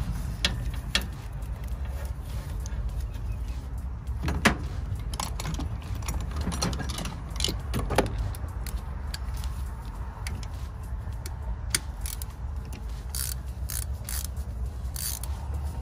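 Hand tools and loose metal fasteners clicking and clinking as bolts and a hose clamp are worked off the front of an engine. The clicks are scattered, with a quicker run of sharp ones near the end, over a steady low rumble.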